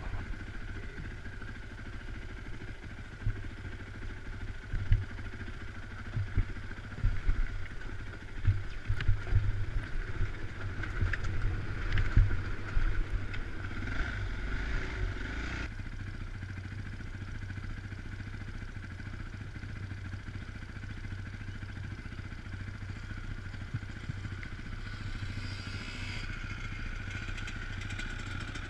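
Dirt bike engine running through a trail ride, with a steady engine note. In the first half the bike's knocks and clatter over rough, muddy ground come in bunches, and after about 16 seconds the engine runs on more smoothly.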